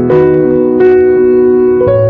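Keyboard background music in held chords, with two short hissing hits less than a second apart and a change of chord near the end.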